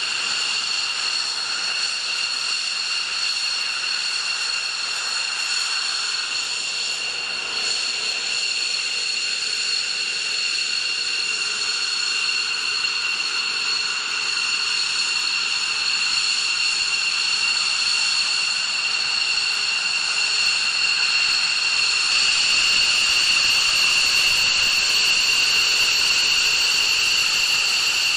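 F-15 fighter jet engines running at ground idle: a steady high-pitched whine of several tones over a rushing hiss. The whine gets louder about two-thirds of the way through.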